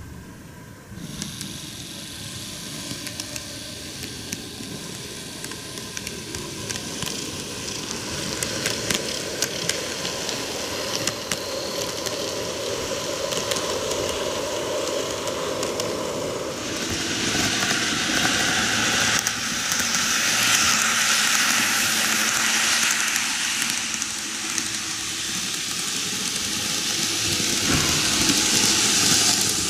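TOMIX N-gauge model train (Meitetsu 8800 series Panorama DX) running on its track: a steady whirring, rattling rolling noise with fine clicks from the wheels, starting suddenly about a second in and growing louder and hissier past the middle.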